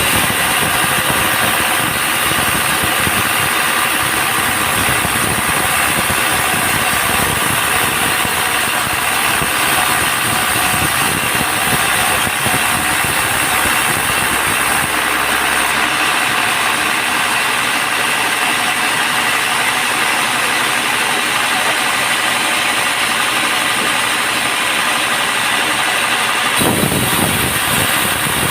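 Band sawmill running steadily, a continuous engine-driven machine drone with a high, even whine, which changes abruptly near the end.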